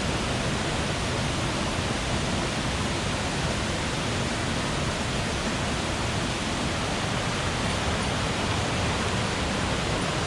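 Mountain stream water rushing steadily, an even, unbroken wash of sound.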